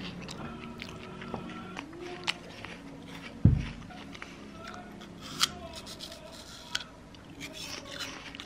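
A person eating: crisp bites and chewing, first of toast, then of apple, over soft background music. A dull thump comes about three and a half seconds in.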